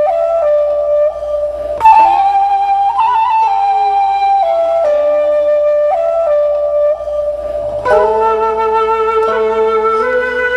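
Background music: a slow flute melody moving in held notes over a quieter lower accompaniment.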